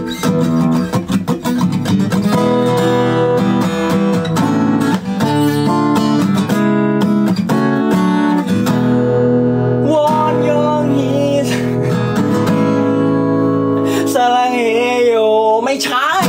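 Acoustic-electric guitar played, chords strummed and picked one after another. A voice sings along without clear words in the second half, most plainly near the end.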